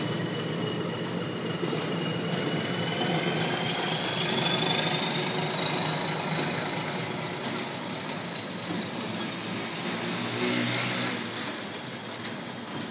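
Nilgiri Mountain Railway train moving slowly past, its engine running with a steady low rumble. A thin high squeal slowly rises in pitch over the first half.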